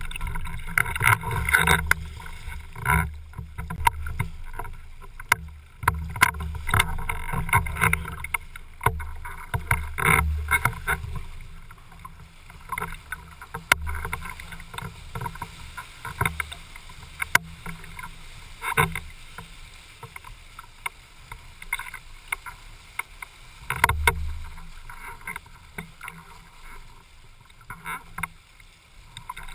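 Water splashing and rushing along a windsurf board under sail, picked up by a camera mounted on the rig, with a low rumble underneath and a few sharp knocks. It is busiest and most splashy for the first ten seconds or so, then steadier.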